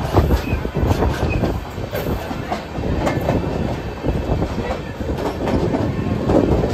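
Train running along the track, with a steady rumble and irregular clacks of the wheels over the rail joints.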